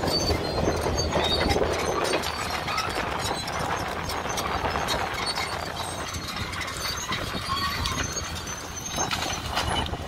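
Caterpillar crawler bulldozer running under load, a steady low engine rumble, while the heavy chain it tows clanks and rattles link on link, dragging and scraping through brush as trees are pulled down.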